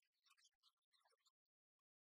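Near silence with faint, scattered small clicks of plastic model-kit parts being handled and fitted, dying away a little after a second in.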